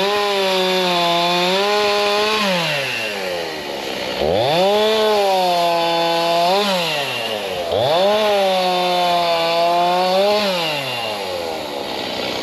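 Chainsaw revved to full throttle three times, each held for about two and a half seconds with a slight sag in pitch, and dropping back between, as it cuts branches off a tree.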